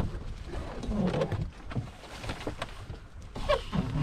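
Wind buffeting the microphone as a low, gusting rumble while a line is tied to a canoe seat, with small knocks from the rope handling. Two short sounds that bend in pitch, like a voice, come about a second in and near the end.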